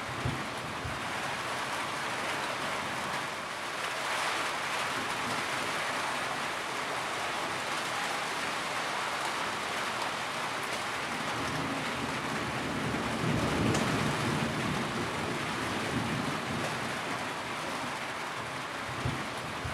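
Steady rain with a low rolling rumble of thunder that swells and fades about two-thirds of the way through, and a couple of brief low thumps near the start and near the end.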